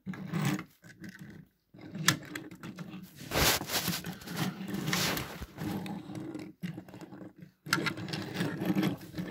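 Close handling noise: fingers moving and turning small die-cast toy cars, with irregular rubbing, scraping and a few sharp clicks near the microphone.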